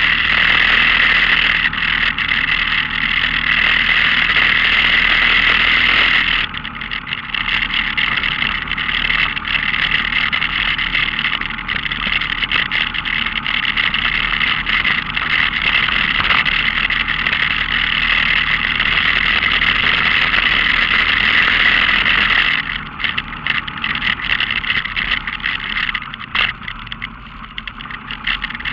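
Off-road vehicle's engine running as it drives along a rough dirt trail, with a steady loud hiss over the engine note. The sound eases off briefly about six seconds in and drops again in the last few seconds.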